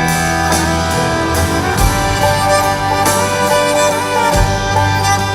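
Live country band playing an instrumental break: fiddle and guitars over a steady drum beat.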